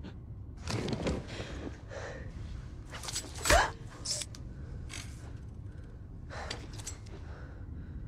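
Film fight sound effects: a scuffle with gasps and grunts and several short hits and scrapes, with one loud thud about three and a half seconds in.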